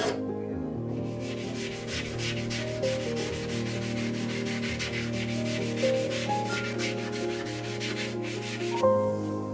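Hand sanding of a wooden part with sandpaper on a sanding block: a run of fast, even back-and-forth rasping strokes that starts about a second in and stops shortly before the end.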